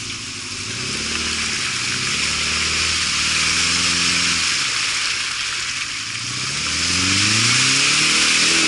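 Off-road 4x4's engine revving under load: the pitch climbs and holds, drops about halfway through, then climbs again near the end, with a steady rushing hiss over it.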